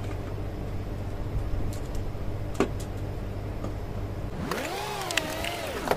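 Steady low hum with a few light clicks as plastic plug-in terminal blocks are handled on the controller. About four and a half seconds in, the hum cuts out and a pitched tone sweeps up and wavers for about a second and a half.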